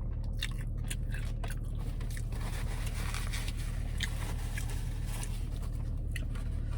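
Close-up mouth sounds of chewing and biting crunchy fried chicken sandwich, irregular crunches and crackles, over a steady low hum.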